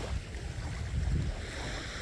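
Ocean waves washing as surf, with a deep uneven rumble of wind buffeting the microphone.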